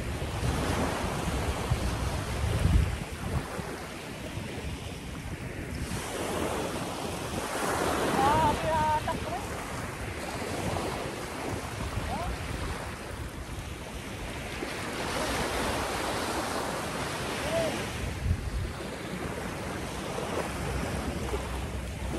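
Small waves breaking and washing up on a sandy beach, the surf swelling and ebbing every several seconds, with wind rumbling on the microphone.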